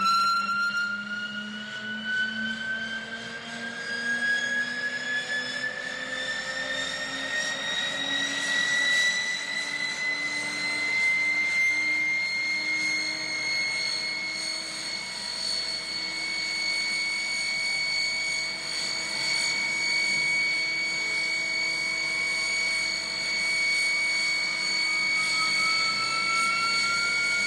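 Jet airplane engines whining while taxiing, the whine rising slowly in pitch over the first ten seconds or so and then holding steady.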